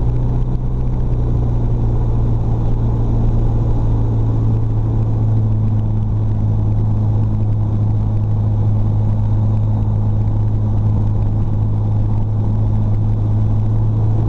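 Jabiru UL-450's four-cylinder air-cooled Jabiru engine running steadily at low power, heard from inside the cockpit as the aircraft rolls along a grass strip.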